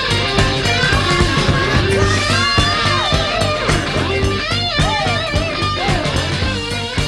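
Hard rock music: a lead electric guitar playing bending, sliding notes over a steady drum beat.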